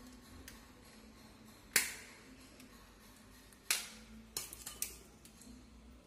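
Sharp plastic clicks from a Legrand single-gang wall switch being taken apart by hand: two loud snaps about two seconds apart, then a quick run of lighter clicks about two-thirds of the way through.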